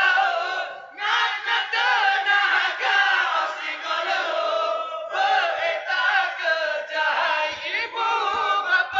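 A group of young men singing and chanting together into a microphone, a call to wake people for sahur, the pre-dawn meal in Ramadan. The voices drop out briefly about a second in and again about five seconds in.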